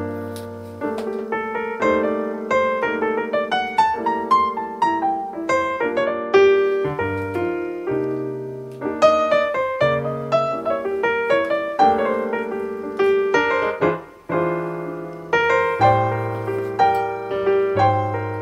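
Background piano music: a quick, busy melody over held bass notes, with a brief drop about fourteen seconds in.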